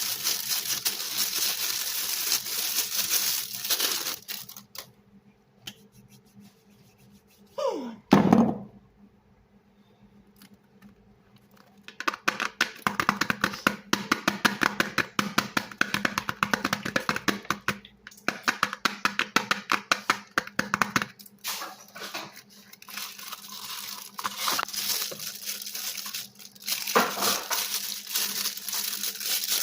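Soap being cut and crushed: dense crunchy crackling, then a quiet gap broken by one short, loud falling swoop and thud, then a long run of rapid clicking crunches and more crackling. A faint steady hum lies underneath.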